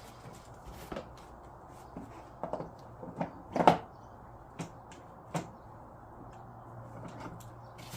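Scattered knocks and clicks of a ride-on toy car's parts being handled and fitted during assembly. The loudest is a cluster of knocks about three and a half seconds in.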